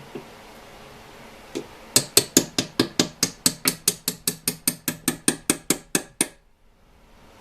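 Rapid, even hammer taps on metal, about five a second, starting about two seconds in and stopping about four seconds later, driving a tight bolt into place.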